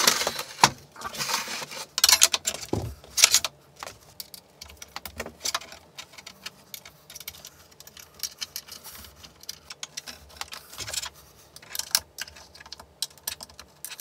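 Small metal parts and aluminium extrusion being handled: irregular clicks, knocks and rattles, busiest in the first few seconds and again near the end.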